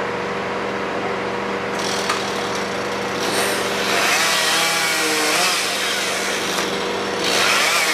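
A chainsaw cutting through branches of a snow-laden tree, its pitch wavering as it works, in two stretches from about three and a half seconds in and again near the end. Under it, the steady hum of the turntable ladder truck's engine running.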